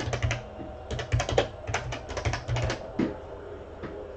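Typing on a computer keyboard: quick runs of keystrokes, then two single key presses near the end.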